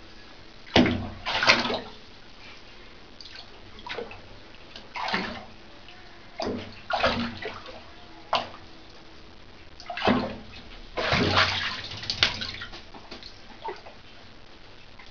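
A cat splashing in shallow bathwater as it paws and lunges at small fish: irregular short splashes and slaps of water, about ten in all. The longest run of splashing comes about eleven seconds in.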